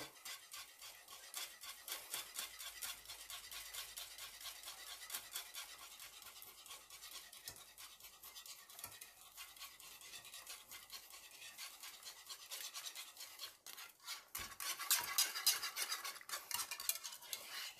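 Wire whisk beating a thick cream sauce in a non-stick pot: a quiet, fast, even run of light scraping strokes against the pot, louder for a few seconds near the end. The sauce is being stirred nonstop so it doesn't stick as it comes to the boil.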